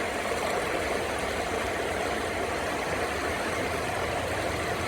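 Steady rushing of river water flowing over rapids, an even noise that holds without change.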